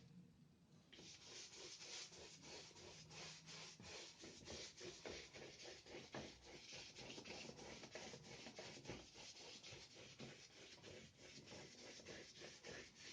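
Faint scratchy rubbing of a wide paintbrush laid with white gouache being scrubbed back and forth over paper to prime the sheet, in quick even strokes of several a second, starting about a second in.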